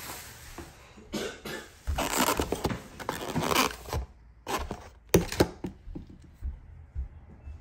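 Foam clamshell takeout container handled and opened: a few short bursts of foam rubbing and scraping, then sharp clicks around the middle as the lid's latch tabs pop open.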